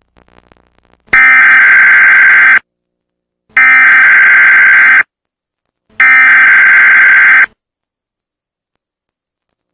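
Emergency Alert System SAME header: three loud electronic data bursts of about a second and a half each, a second apart. These are the digital code that opens an emergency alert, carrying its event, area and time.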